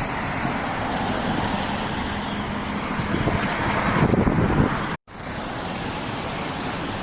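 Street traffic noise with wind on the microphone, swelling louder for a moment, then cutting out abruptly about five seconds in before steady traffic noise resumes.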